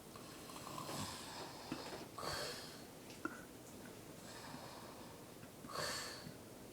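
Someone asleep, snoring: three soft, hissy snoring breaths spaced a few seconds apart, the last near the end. A short click comes between the second and third.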